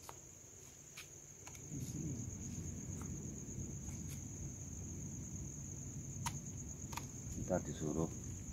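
Crickets trilling steadily, one continuous high-pitched tone, with a few faint clicks and faint low voices near the end.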